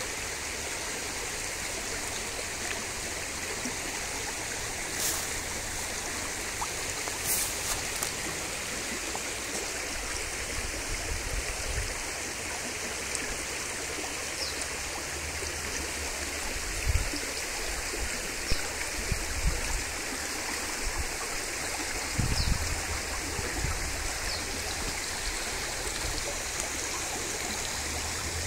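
Shallow stream running over stones, a steady babbling wash of water. A few short low thumps stand out about halfway through and again later.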